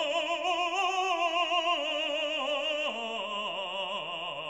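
Background classical music in operatic style: a melody of long held notes with heavy vibrato, changing pitch a couple of times.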